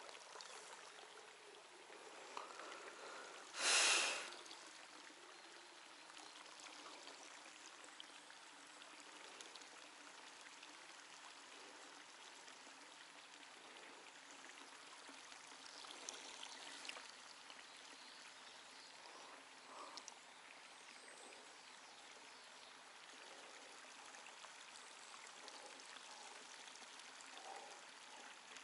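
Light rain falling, a faint steady hiss and patter. About four seconds in there is one short, much louder rushing burst.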